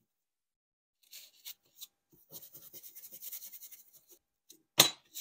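Steel wool rubbing loosened rust off a rusty steel T-bevel blade in quick, light strokes, starting after a second of quiet. Near the end there is one sharp knock, the loudest sound.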